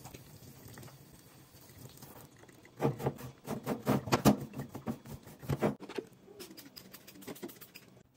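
A dish brush scrubbing a stainless steel sink with its wire sink grid. About three seconds in comes a run of quick, rough scrubbing strokes lasting about three seconds, followed by fainter rubbing.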